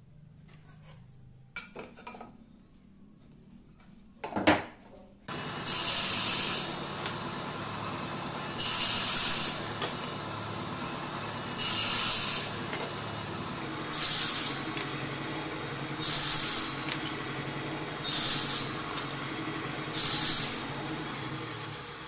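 A sharp knock, then a table saw starts about five seconds in and runs steadily. Its blade crosscuts a laminated wood strip on a sled seven times, one cut about every two seconds, each cut a loud hiss of about a second.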